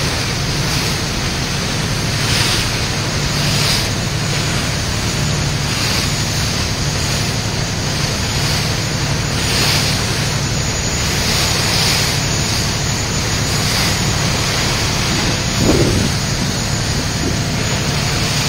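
Wind buffeting the microphone and water rushing past the hull of a moving ferry, over the steady low drone of its engine, with gusts every second or two.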